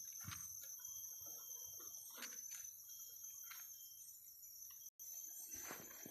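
Steady high-pitched drone of forest insects, with scattered faint rustles and clicks close by. The sound cuts out completely for an instant about five seconds in.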